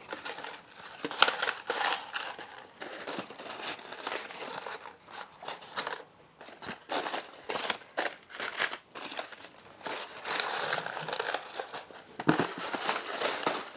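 Dry corn husks rustling and crackling as they are handled, an irregular run of crinkles and small snaps.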